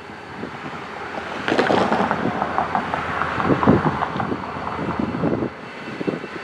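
Two EMD four-axle diesel locomotives, a GP40M and a GP25X, approaching with engines running, mixed with wind gusting across the microphone. The sound gets louder about a second and a half in.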